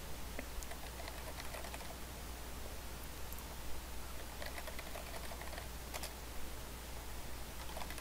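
Computer keyboard typing: scattered key clicks, a few at a time, over a steady low hum and hiss.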